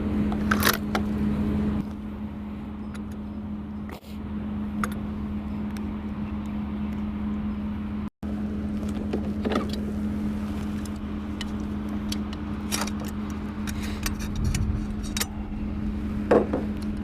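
Steady low mechanical hum, like a running engine or generator, with scattered sharp metallic clicks and clinks over it. The sound drops out briefly about four and eight seconds in.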